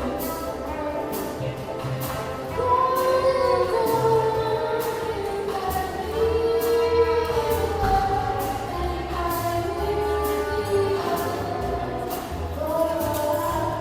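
Loud music with singing: long held, sliding sung notes over a pulsing bass beat.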